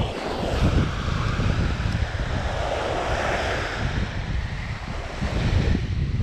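Small waves breaking and washing up the sand, with wind buffeting the microphone in an uneven low rumble.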